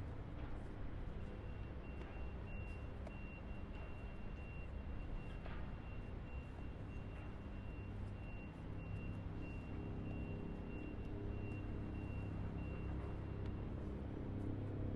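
Oceanfront outdoor ambience: a steady low rumble of vehicle traffic, with a high electronic beep repeating rapidly from about a second in until shortly before the end.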